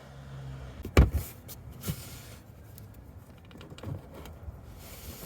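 A short low hum, then a loud clunk about a second in, followed by a lighter knock and a faint one: tools and parts being handled and set down during work on the car.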